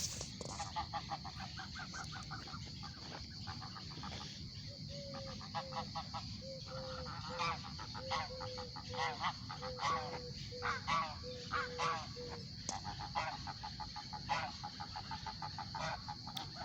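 A flock of geese honking in flight: many repeated, overlapping honks, busiest in the middle.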